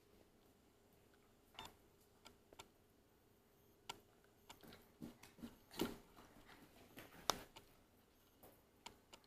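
Scattered light clicks and taps at irregular intervals, the loudest about six and seven seconds in, from Jindo puppies moving about, over a faint steady hum.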